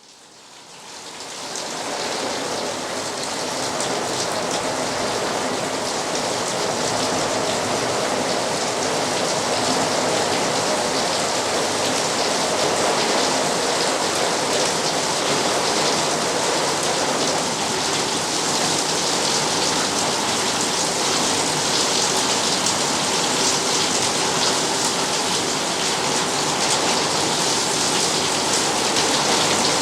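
Rain pattering on a corrugated iron shed roof, a steady dense hiss of drops on metal that fades in over the first couple of seconds.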